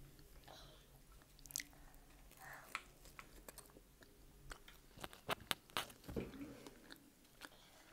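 Close-miked chewing of pizza: quiet mouth clicks and bites scattered through, with a cluster of sharper ones about five to six seconds in.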